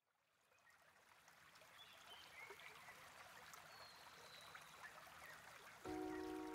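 Faint stream water running and trickling, fading in gradually, with a few faint high chirps. About six seconds in, a piano chord comes in over it.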